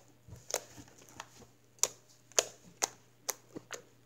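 White slime poked with all five fingertips, giving a string of short, crisp pops and clicks, irregularly spaced at about two a second.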